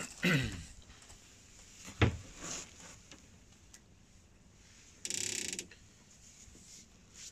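Handling noise of fishing tackle while a hook is baited at the rod. A sharp knock comes about two seconds in, and a fast ratcheting buzz lasts about half a second just after five seconds.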